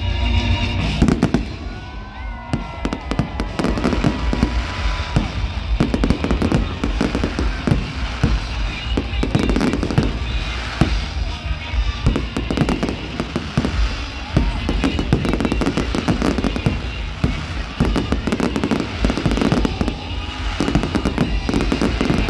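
Fireworks display: aerial shells bursting in a rapid, continuous barrage of bangs and crackles.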